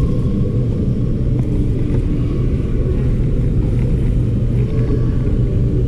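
A steady low rumble with no clear events in it, the sort of continuous low noise that carries on under the talk on either side.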